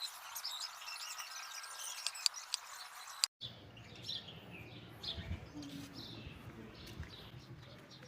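Small birds chirping, with many short repeated calls; the sound cuts out for an instant about three seconds in.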